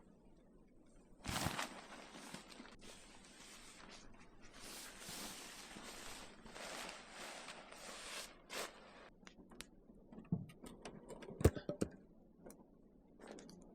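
Rustling and scraping of camping gear being handled and packed away, then a string of light knocks and clicks, one heavier knock near the end.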